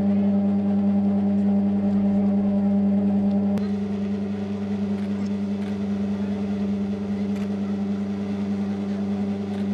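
Electric dough-kneading machine running: a steady, even motor hum that drops a little in level about three and a half seconds in.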